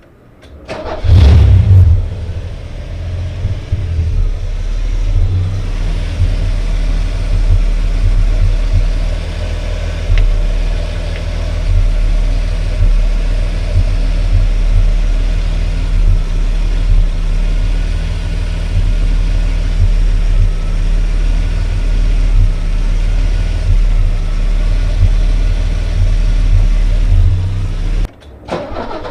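Ford EA Falcon inline-six idling roughly, its low exhaust pulses uneven and irregular. The owner puts this down to the engine running very rich with a hint of misfiring.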